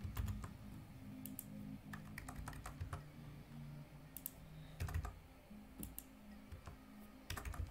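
Computer keyboard typing: scattered, irregular key presses, over a low steady hum.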